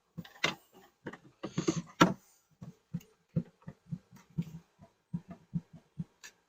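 Irregular soft knocks and sharp clicks of beehive equipment being handled, a few louder clicks in the first two seconds, then a quicker run of light knocks at about three a second.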